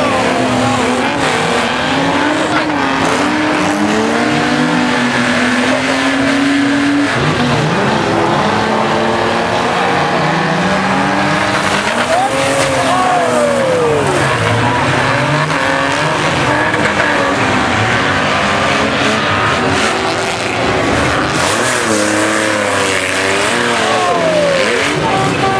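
Several banger racing cars' engines revving hard and rising and falling in pitch as they race, with tyres squealing and skidding on the track.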